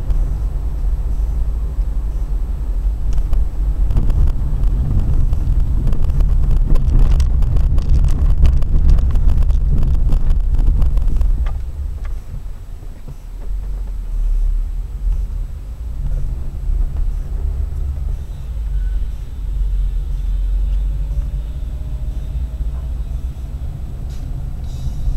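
Car driving, heard from a dashcam inside the cabin: a steady deep rumble of road and engine. From about four to about eleven seconds in it grows louder, with many sharp knocks and rattles as over a rough road surface, then it settles lower as the car slows.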